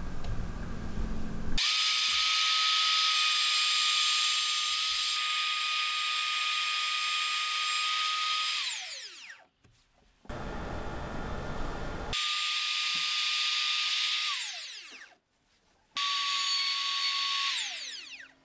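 Makita RT50DZ cordless trim router running at full speed with a steady high whine, then switched off so the whine falls away as it winds down. This happens three times, with short silent gaps and, after the first run, a short stretch of rougher noise.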